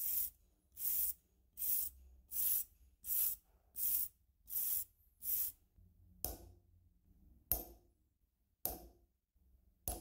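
Eight even rasping strokes of metal on the padlock's steel body, the kind a hand file makes, then a hammer striking a center punch set on a rivet head four times, about a second apart, to drive out the padlock's rivets.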